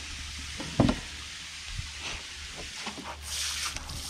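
A knife working through a black drum fillet, skinning it back toward the tail on a cutting board: small scraping and tapping sounds, with one sharp knock just under a second in and a brief rustling hiss about three seconds in.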